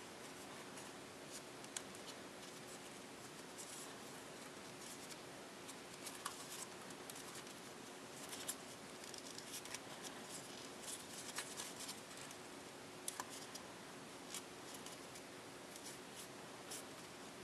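Printed copy paper being creased and pinched by hand in origami folding: faint, irregular crinkles and small clicks, busiest through the middle, over a steady low hum.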